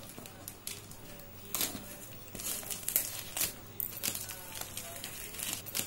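Scissors cutting through the plastic wrap and packing tape of a cardboard parcel: irregular crinkling and tearing with sharp snips, the loudest crackles coming between about one and a half and three and a half seconds in.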